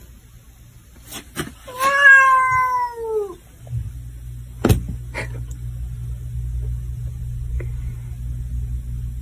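A domestic cat gives one long, drawn-out meow about two seconds in, dropping in pitch as it ends. After it come a sharp click and a steady low rumble.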